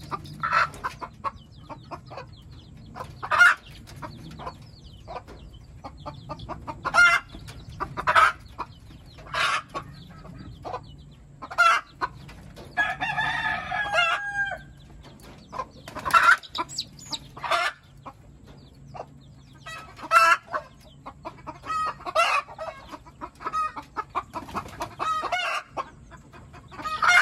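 Chickens clucking in short calls every second or two, with a rooster crowing once about halfway through.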